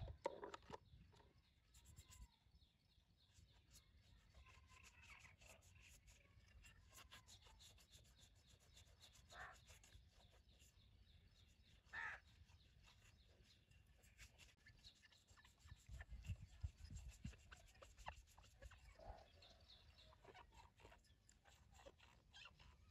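Near silence: faint outdoor background with a few brief, faint sounds.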